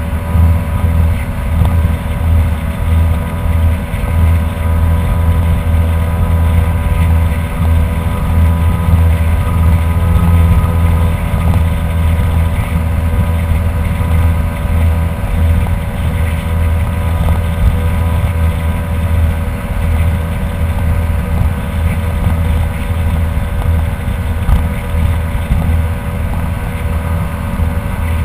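Kawasaki 1100 ZXi jet ski's three-cylinder two-stroke engine running loud and steady at cruising speed, about 35 mph while towing a water skier, with wind noise on the microphone.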